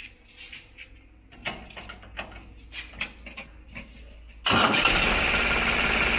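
New Holland 3630 TX tractor's diesel engine starting: a few faint clicks and knocks, then about four and a half seconds in the engine catches suddenly and settles into a loud, steady run.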